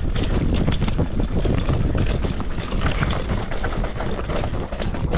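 Wind buffeting the microphone over a constant rattle and clatter of a mountain bike rolling fast over rough trail, with many small knocks throughout.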